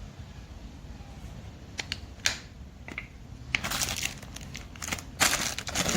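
A few sharp clicks, then crinkling and crumpling handling noises that grow busier over the last few seconds, over a low steady hum.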